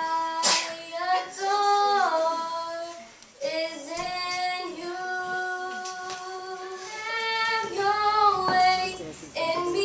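A young girl singing solo into a handheld microphone, holding long notes that glide between pitches, with a short break for breath about three seconds in.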